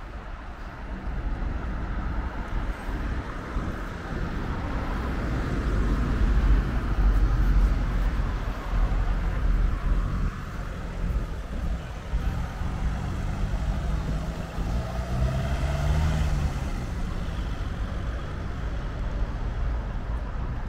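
Road traffic: a motor vehicle's engine running close by over a steady low rumble, its pitch shifting up and down as it moves.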